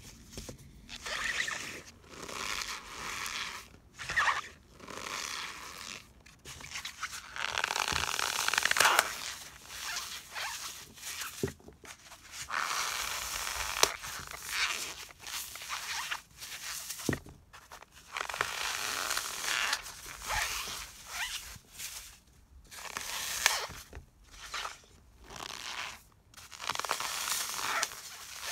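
Dry floral foam packed in cornstarch being squeezed and crumbled by hand: repeated crunching and scraping in bursts a second or two long with short pauses, with a few sharper cracks as the foam breaks.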